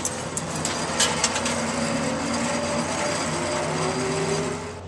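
Wind noise buffeting the microphone, with a faint whine that rises slowly in the second half from zipline trolleys running down the steel cable. A few sharp clicks come near the start and about a second in.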